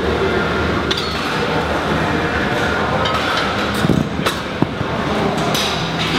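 Heavy dumbbells set down on the gym floor after a set of presses: a couple of heavy thuds about four seconds in, with metal clinks of weights before and after, over a steady gym din.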